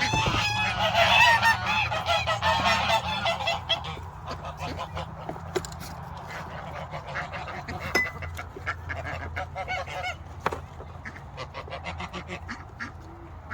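Farm poultry calling: a dense flurry of overlapping calls for about the first four seconds, then fewer and fainter calls with scattered light clicks.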